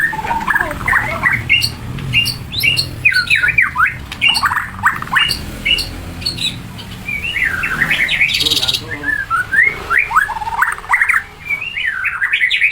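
A murai (Copsychus songbird) singing a continuous, varied song of quick rising and falling whistled notes, with a harsher, scratchy note at about eight seconds.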